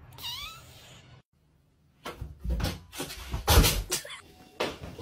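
A brief chirping call, then after a short break a closet door knocking and banging several times, the loudest thud about three and a half seconds in.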